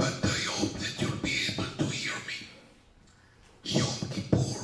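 A man speaking into a handheld microphone, with a pause of about a second midway.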